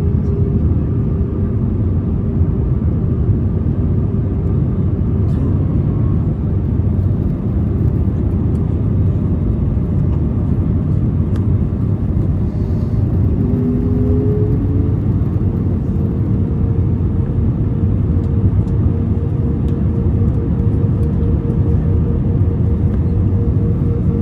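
Steady cabin noise of an Airbus A320 in flight: a low engine drone and airflow rush, with a faint hum that shifts slightly in pitch about halfway through.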